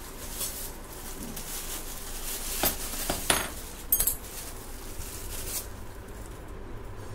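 A plastic bag crinkling as small metal fittings are handled in it, with several sharp metal clinks in the middle as the parts knock together.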